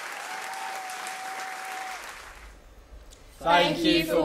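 Audience applause that dies away about two seconds in, with one steady held tone sounding over it briefly. After a short lull, several young voices start speaking together near the end.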